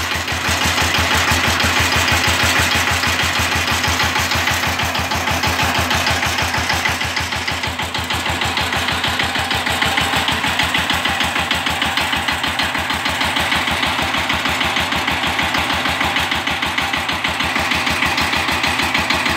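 Diesel engine of a lifted Wheel Horse garden tractor idling steadily with an even, rapid pulse, shortly after a cold start.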